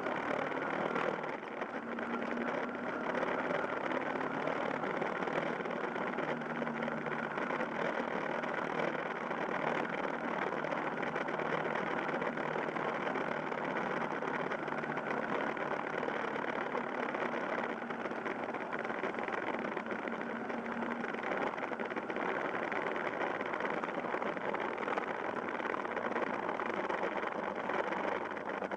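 Yamaha Fazer YS250 motorcycle's single-cylinder engine running while riding along at town speed, mixed with steady wind and road noise. The engine note rises and falls slightly.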